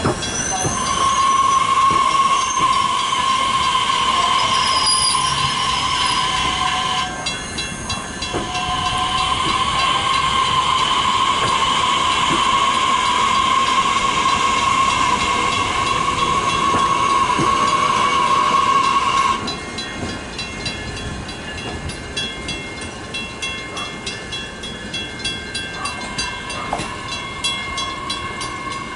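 Metra Electric train running away from the station with a steady electric whine over rolling rail noise. About two-thirds of the way through the whine cuts out and the sound drops to quieter rolling and rail clicks.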